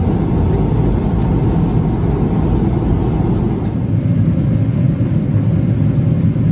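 Steady rumble of an airliner cabin in flight: the Boeing 777-300ER's GE90 engines and airflow heard from inside the cabin. There are a couple of faint clicks, one about a second in and one near the middle.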